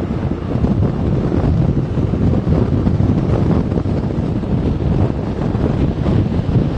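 Wind buffeting the microphone while riding a motorbike at speed: a steady rush of noise, heaviest in the low end.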